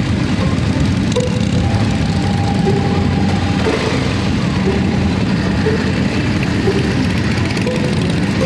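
Many motorcycle and trike engines running at low speed as a large group rolls slowly together, a steady loud rumble, with the camera motorcycle's own engine close by.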